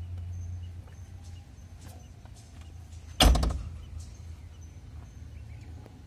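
JCB backhoe loader's cab door slammed shut once, a single loud bang about three seconds in.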